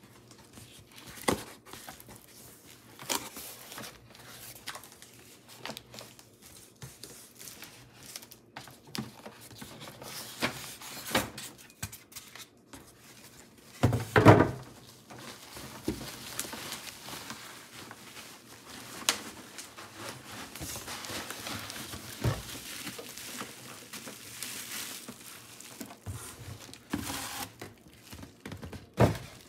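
Cardboard shipping box being opened by hand: tape torn and flaps pulled back, with cardboard rustling, scraping and occasional thunks. The loudest moment is a burst of handling about fourteen seconds in.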